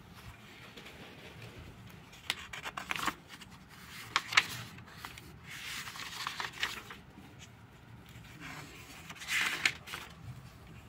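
Pages of a thin-paper notebook being turned by hand: the paper rustles and flaps in short bursts about four times, the loudest about four seconds in, with small ticks between.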